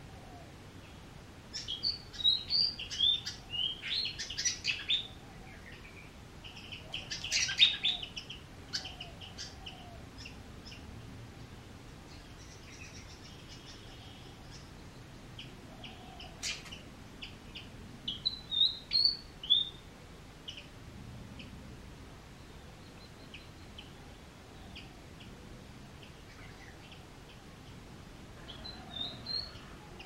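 Red-vented bulbuls calling: four bursts of short chirping notes, separated by stretches of quiet background. A single sharp click comes about halfway through.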